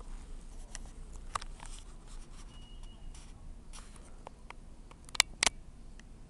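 Scattered small clicks and taps over a low steady hum, with two sharper clicks in quick succession a little after five seconds. A short, faint high beep sounds about two and a half seconds in.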